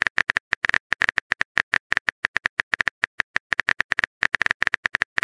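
Rapid keyboard typing clicks from a texting-story app, about ten short ticks a second in a slightly uneven run.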